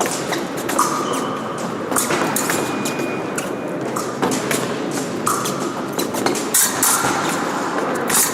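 Épée fencing bout in play: repeated sharp clicks and clashes of the blades and thuds of footwork on the piste, with a few short steady tones, over the general noise of a large sports hall.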